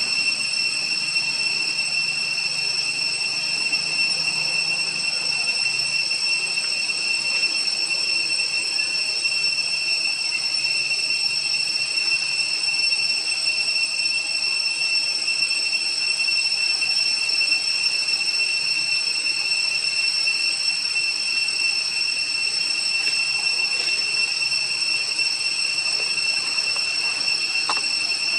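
Steady, high-pitched drone of an insect chorus in the forest, two high pitches held unbroken.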